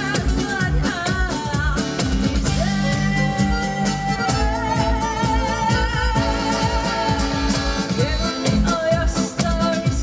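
Live band music: a chromatic button accordion playing over an upright double bass and a steady beat, with a woman singing. About halfway through, one long wavering note is held for a few seconds.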